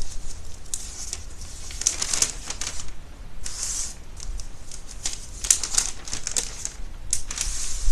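Irregular soft rustling and crinkling in short bursts, with a few light clicks between them.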